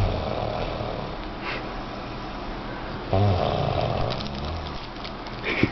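A person snoring: two long snores, one at the start and one about three seconds in, then a brief sharp noise near the end.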